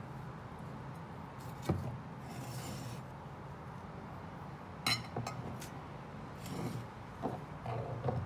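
Glass kitchenware being handled and set down on a wooden countertop: a clip-top glass jar, a glass bowl and glass food-storage containers clink and knock against each other and the wood, with the sharpest clink about five seconds in and a small cluster of knocks near the end, between short stretches of rubbing.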